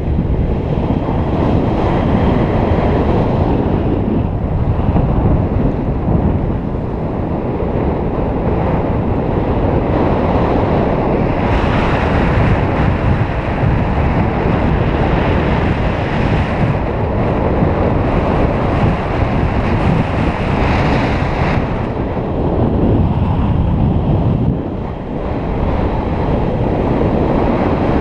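Airflow of a paraglider in flight buffeting the camera microphone: a loud, rough wind rumble. It swells into a brighter, hissier rush for several seconds about two-fifths of the way in, and again briefly about three-quarters through.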